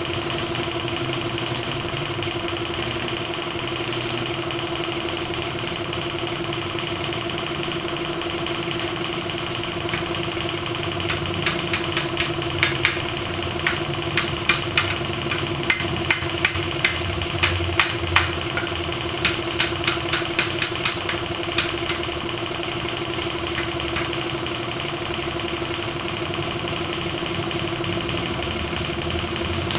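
A steady machine hum. About eleven seconds in, a run of sharp taps or knocks joins it, roughly two a second, lasting about ten seconds.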